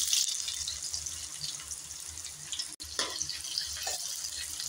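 Chopped onions sizzling in hot oil with popped mustard seeds in an iron kadai. The sizzle is loudest just as they go in and settles to a steadier hiss, with a few small pops.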